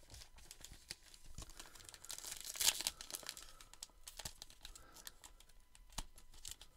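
Trading-card pack wrapper crinkling and being torn open, in scattered crackles and short rustles with a louder rustle nearly three seconds in.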